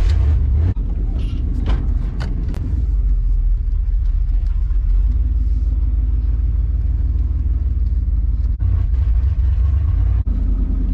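Pickup truck being driven, heard from inside the cab: a steady low engine and road rumble, with a few light knocks or rattles in the first few seconds.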